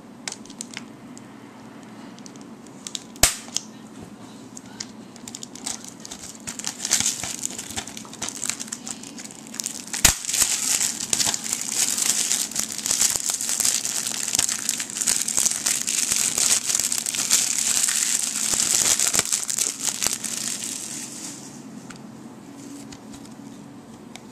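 Plastic shrink-wrap being torn and peeled off a new DVD case: a sharp click about 3 s in and a snap about 10 s in, then steady crinkling of the plastic that stops about 21 s in.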